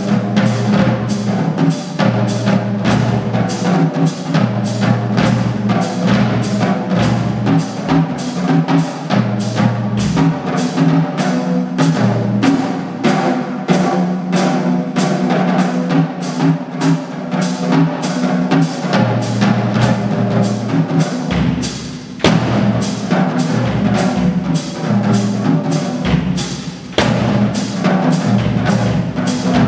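Unaccompanied jazz drum-kit solo: dense figures around the drums, with a steady sharp tick keeping time about twice a second.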